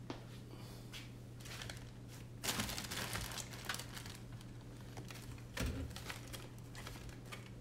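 Rummaging through a bin of electronics parts: crinkling and rustling in two spells, about two and a half and five and a half seconds in, over a steady low hum.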